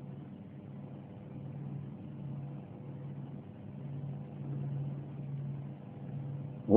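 Low background hiss and hum of an old tape recording during a pause in Quran recitation, with a faint uneven low murmur. The reciter's chanting voice comes in loudly at the very end.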